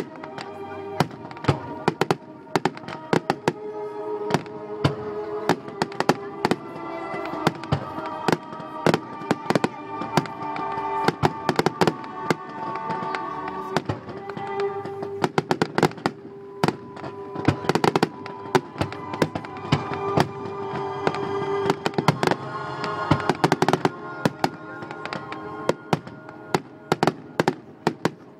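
Aerial fireworks display: many shells bursting with sharp bangs and crackles in quick succession, with music playing underneath.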